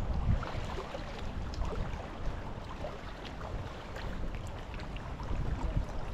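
Wind buffeting the microphone in a fluctuating low rumble, over scattered faint small clicks and ticks.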